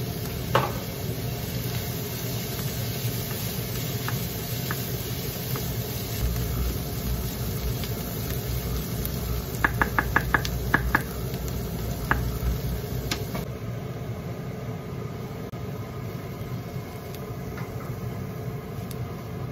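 Wooden spatula stirring diced vegetables in a frying pan and knocking against the pan, with a quick run of about six knocks around ten seconds in, over a steady low hum.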